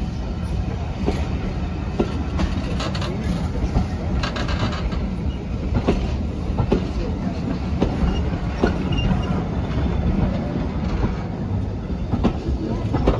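Passenger coaches rolling slowly past, a low steady rumble with irregular clicks and knocks as the wheels cross rail joints, and a few brief faint wheel squeals about two-thirds of the way through.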